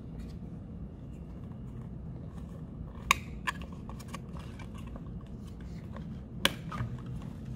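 Clicks of an M50 gas mask's plastic and rubber parts being handled as its disc valves and air deflectors are pressed back into place: a sharp click about three seconds in, a few softer ones just after, and another sharp click near the end, over a steady low room hum.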